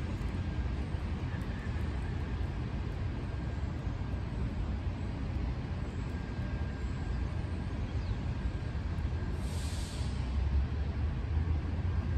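City traffic on rain-wet streets, a steady low rumble with a faint hiss over it. A brief sharper hiss comes about nine seconds in, followed by a slightly louder rumble.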